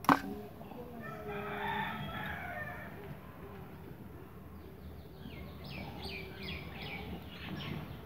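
A rooster crows about a second in, with a quick series of short, high, falling chirps later on. A sharp click right at the start is the loudest moment.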